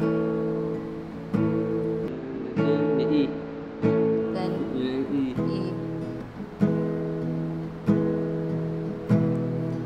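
Acoustic guitar strummed slowly, a fresh chord a little more than a second apart, each left to ring.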